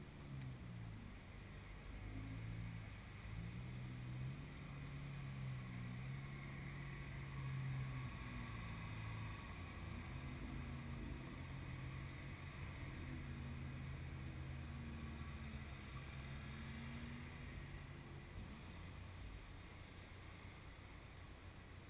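Car engines idling at low revs, a steady hum whose pitch dips and wanders a little. It drops away to a fainter hum in the last few seconds.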